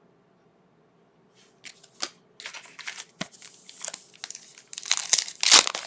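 Trading card pack wrapper being torn open and crinkled: a run of sharp crackles and rips starting about a second and a half in and growing louder toward the end.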